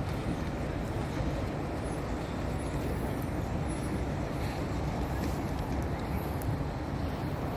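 Steady road traffic: cars moving through a large car park and along the road beside it, an even low rumble.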